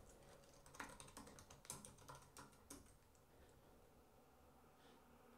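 Faint typing on a computer keyboard: a quick run of keystrokes over the first three seconds or so, then they stop.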